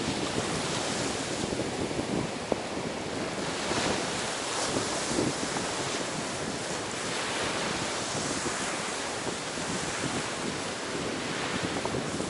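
Ocean waves washing onto a beach in a steady wash of surf that swells and eases every few seconds, with wind buffeting the microphone.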